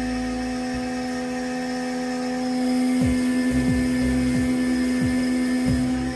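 CNC milling machine's spindle and end mill cutting a spoked flywheel, a steady pitched whine with overtones. From about halfway through, a low thump that drops in pitch repeats about every two-thirds of a second.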